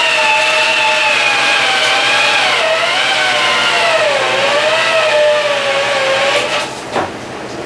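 Heavy 3/4-inch electric drill turning a tube roller to expand a 2-inch steel boiler tube into the tube sheet; its motor whine wavers and dips in pitch as the roller loads up, then stops near the end.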